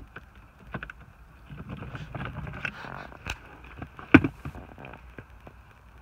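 Old shift knob being unscrewed by hand from the threaded automatic shift lever: scattered light clicks and a rubbing stretch as it turns, with one sharp knock about four seconds in.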